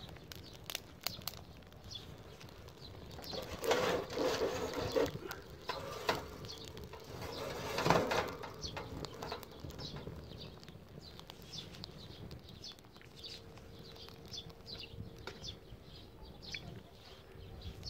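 Twig fire burning in a small portable grill, crackling with scattered sharp pops and snaps. Two louder rushes come about four and eight seconds in.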